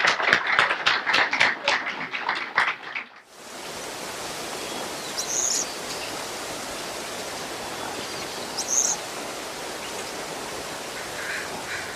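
Audience applauding with rapid, dense claps for about three seconds. The applause cuts off abruptly into a steady hiss, broken by two faint brief high chirps.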